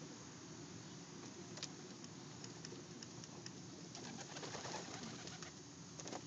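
Domestic pigeons cooing faintly, with scattered sharp clicks and taps that thicken into a flurry about four seconds in.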